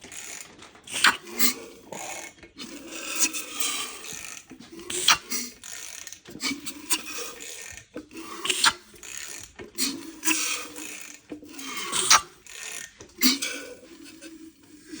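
Freshly assembled Mazda 13B rotary engine being turned over slowly by hand, with repeated sharp clicks from the turning and short hisses of air as the rotors pass through compression. The compression is good, a sign that the apex seals are sealing.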